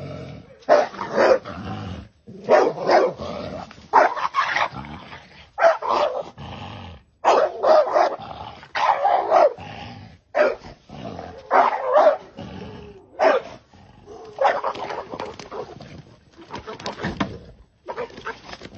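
A bully-breed dog barking at a snake it is confronting, in short volleys of one or two barks about every second.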